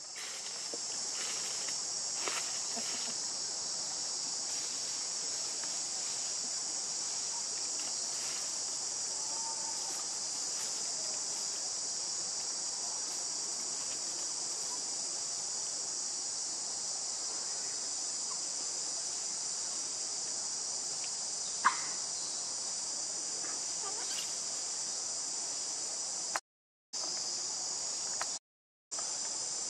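Steady high-pitched chorus of insects, with a few faint clicks and one sharp click about two-thirds of the way through. The sound cuts out to silence twice, briefly, near the end.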